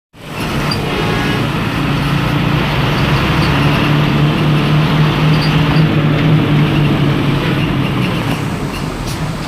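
Hino AK1J bus engine running steadily under load at highway speed, a strong steady drone over road and wind noise.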